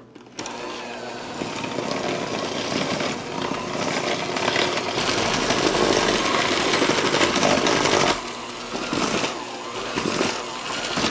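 KitchenAid electric hand mixer running with its beaters churning through stiff gingerbread cookie dough. The motor is under heavy load from the dough. It starts about a third of a second in, is loudest in the middle, and dips briefly around eight seconds before carrying on.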